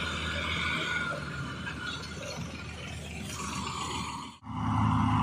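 Farm tractor diesel engines running under load, with a steady low hum. About four seconds in the sound cuts out sharply and switches to a louder, steady engine drone.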